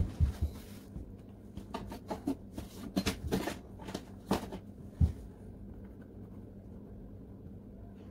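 Tabletop handling noise: scattered clicks and light knocks as objects are moved about. Heavy thuds come right at the start and again about five seconds in.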